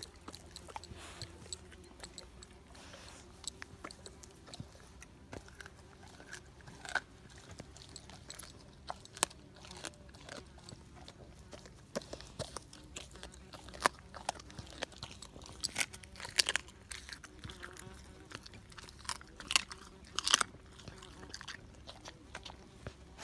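An American Staffordshire Terrier biting and chewing half-thawed raw meat, with irregular sharp cracks from his jaws, more frequent and louder in the second half.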